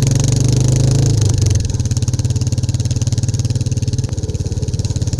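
Royal Enfield Classic 350's single-cylinder engine pulling away under throttle, with a steady rapid beat. About a second and a half in the pitch drops and it settles into a slightly quieter steady run.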